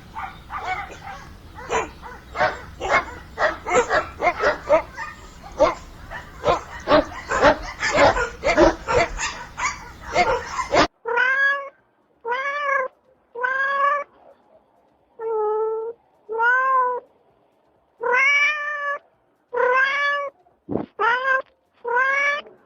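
Rapid, overlapping yapping barks from dogs. About 11 seconds in it cuts to a cat meowing about ten times, each long meow rising then falling in pitch.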